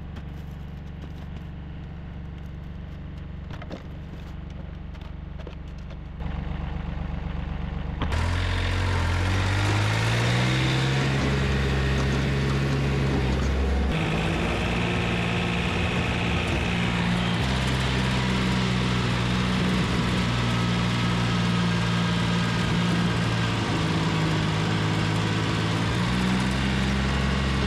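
Diesel engine running at a steady low idle, then revved up about eight seconds in and held at a higher, steady speed, its pitch shifting a few more times.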